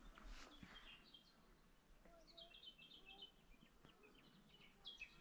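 Faint birds chirping over near silence, with a quick run of short high chirps about two seconds in and a few single chirps around it.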